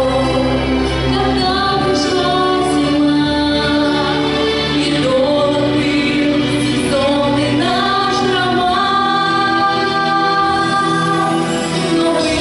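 Two women singing a song together into microphones over an instrumental backing with a pulsing bass line.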